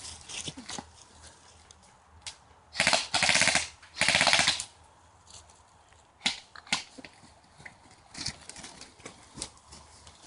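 Airsoft rifle firing on full auto: a short burst and two longer bursts in quick succession between about three and four and a half seconds in, with a rapid, even rattle of shots. Scattered single sharp cracks come before and after.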